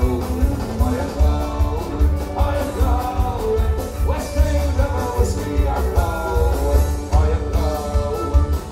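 Live band playing an up-tempo folk-rock number: strummed acoustic guitar, fiddle and a drum kit with a heavy steady kick, with a melody line bending over the top.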